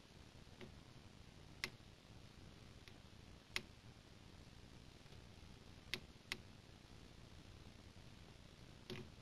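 Near silence: faint room hiss broken by a few sharp, isolated ticks a second or two apart, with a quick cluster of them near the end.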